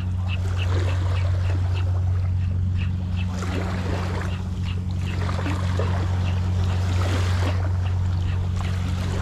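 Spinning reel cranked in a steady retrieve, ticking about three times a second, over a constant low hum and wind noise.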